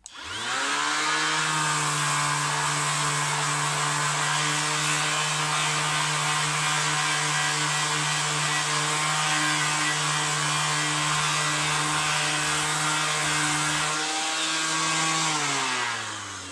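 Ozito 18V cordless random orbital sander with a brushed motor, switched on at speed setting 6 and sanding with 240-grit paper. Its whine rises quickly as it spins up, holds steady, then falls away near the end as it is switched off and winds down.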